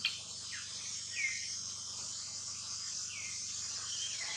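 Steady high-pitched drone of insects, with short falling chirps every second or two.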